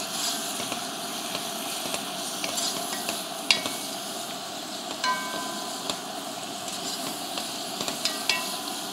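Chunks of beef sizzling steadily as they fry in oil in a pot, turned over with a wooden spoon. Three sharp clinks come along the way, the middle one ringing briefly.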